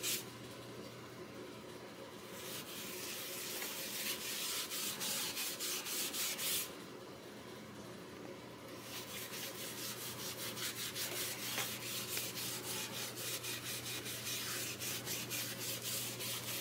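Cloth rag rubbing stain onto a bare mahogany guitar body in quick, repeated wiping strokes, with two short lulls.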